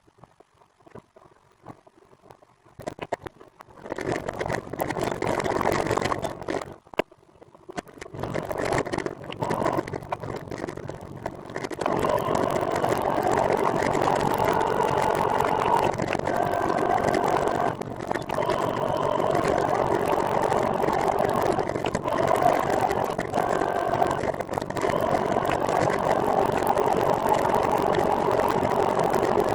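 Steady vehicle and road noise that starts from near quiet, builds up in steps over the first dozen seconds, then holds at a constant level.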